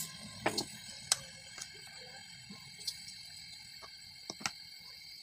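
Garlic cloves and whole spices dropped into an empty cooking pot: a handful of light, scattered clicks over a faint steady hiss.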